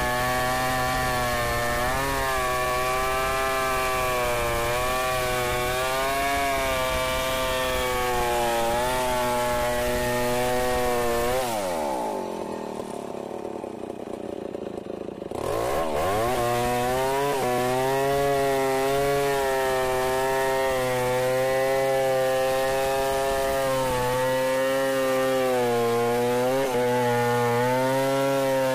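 Stihl 070 two-stroke chainsaw at full throttle, ripping a kubi log lengthwise freehand, its pitch wavering as the chain loads in the cut. Around the middle it drops to idle for about four seconds, then revs back up and keeps cutting.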